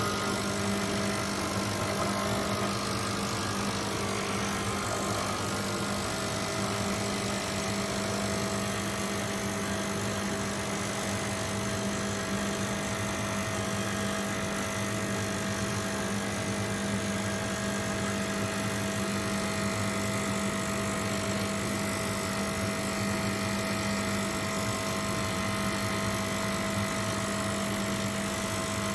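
Breville Bijou espresso machine running its 15-bar pump: a steady, unchanging mechanical hum with a low drone and a higher tone over it.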